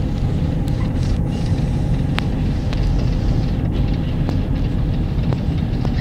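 Steady low engine and road rumble heard from inside a moving vehicle's cabin, with scattered small clicks and rattles.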